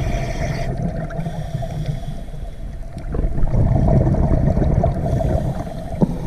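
Underwater ambience picked up through a dive camera housing: a steady low rumble with a faint drone. It grows louder about three seconds in.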